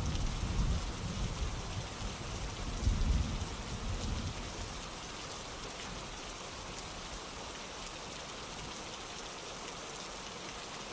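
Steady rainfall hiss from an ambient rain recording. A low rumble fades away over the first four seconds or so, leaving an even, unbroken hiss of rain.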